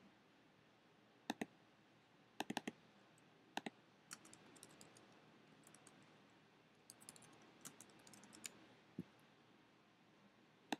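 Keystrokes on a computer keyboard, faint, in short scattered bursts with pauses between them.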